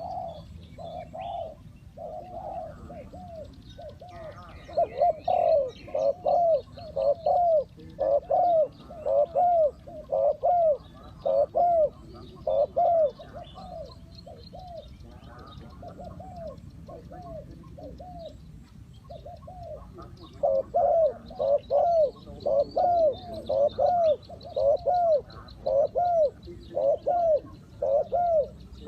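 Spotted dove cooing: a long run of low, arched coo notes, about two a second, in two loud spells with softer cooing between, the calls used to lure wild doves to a trap. Faint high chirps of small birds sound behind it.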